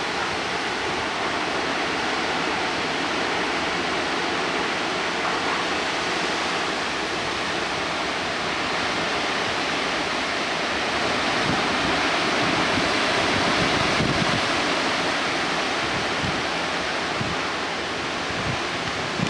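Severe thunderstorm winds: a steady, loud roar of high wind, swelling slightly about two-thirds of the way in, with some wind buffeting on the microphone.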